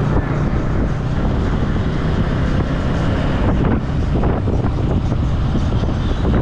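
Motorcycle engine running steadily at cruising speed, with wind buffeting the microphone.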